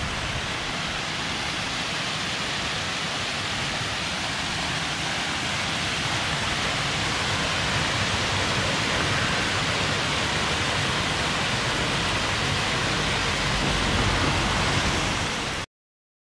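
Steady rushing of running water, growing a little louder, then cut off abruptly near the end.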